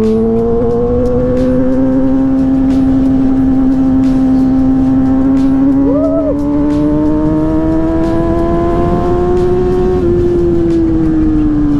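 Yamaha sport motorcycle's engine, heard from on board, pulling steadily in one gear. Its note climbs slowly for about ten seconds, then eases off slightly near the end, over the rush of wind and road noise.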